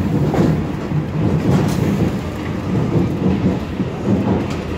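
Inside a Paris Métro MF 77 train car: the train rumbling on the track as it slows into the station, with scattered clicks and rattles.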